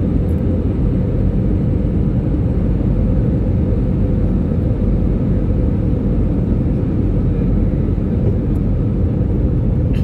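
Jet airliner cabin noise in flight: a steady low rumble of the engines and rushing air, heard from inside the cabin.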